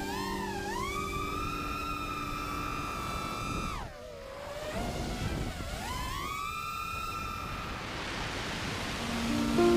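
FPV quadcopter's motors and propellers whining, the pitch holding high, then dropping steeply about four seconds in as the throttle is cut and climbing back up as it is opened again. A rising hiss comes in near the end.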